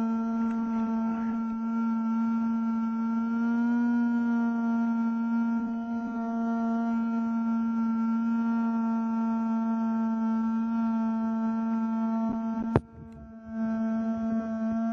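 Small fan running close to the microphone: a steady buzzing whine with overtones. Near the end a sharp click sounds and the whine cuts out for about half a second before returning.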